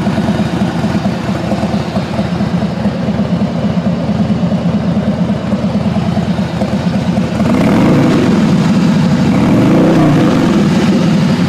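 2015 Harley-Davidson Heritage Softail's V-twin engine idling with a steady pulsing beat. From about two-thirds of the way in, it is blipped up in revs twice and settles back.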